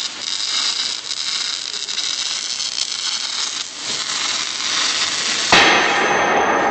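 Electric arc welding: the arc crackles and hisses steadily for about five and a half seconds, then stops, and a sudden louder rushing noise takes over near the end.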